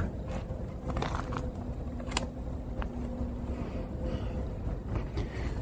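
A sharp metallic clack at the start as the old ice machine's door latch is handled, then the steady low rumble of distant road traffic with a few faint clicks.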